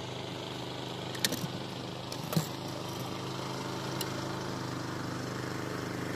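Small boat engine running steadily at an even pitch, with a couple of sharp clicks about one and two and a half seconds in.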